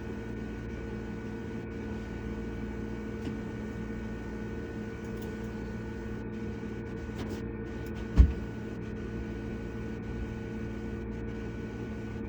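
Steady machine hum with a few held tones, and one low, dull thump about eight seconds in, a knock from working a Proform valve spring compressor on a cylinder head.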